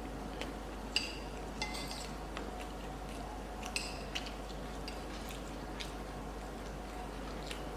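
Cutlery clinking lightly against a plate while eating, a few short scattered clinks, some with a brief ring.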